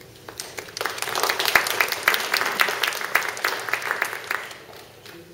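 Audience applauding: many hands clapping, swelling about a second in and dying away after about four seconds.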